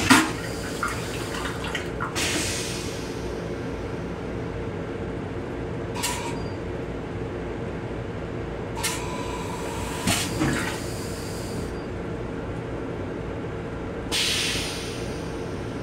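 Train restroom toilet on an M7 commuter railcar running its flush cycle: a sharp clack, then several short hissing bursts of rinse water and air into the stainless bowl, spaced a few seconds apart. Beneath them is the steady running hum of the train.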